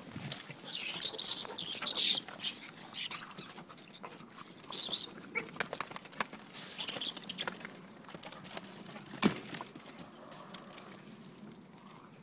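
Whippets scuffling and grabbing at rats: irregular bursts of scrabbling and rustling, heaviest in the first three seconds and again around five and seven seconds in, with a sharp knock about nine seconds in.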